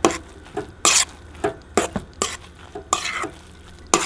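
A metal spoon scraping and clicking against a stainless steel mixing bowl as it stirs a crumbly couscous, feta and egg mixture, in uneven strokes two or three a second.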